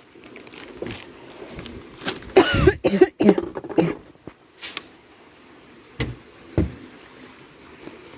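A person coughing in a short run of loud bursts about two to four seconds in, followed by a sharp click about six seconds in.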